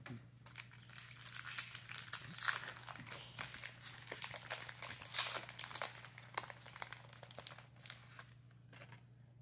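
Foil Pokémon booster pack wrapper crinkling and tearing as it is torn open by hand, a dense crackle that thins out near the end.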